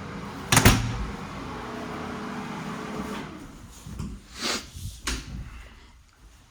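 A door shutting with a bang about half a second in, followed by two sharper knocks or clicks near the end.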